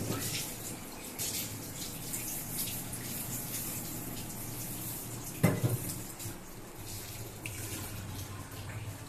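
Two small dogs eating wet rice and vegetables from steel bowls: steady wet smacking, licking and lapping. A single sharp knock about five and a half seconds in is the loudest sound.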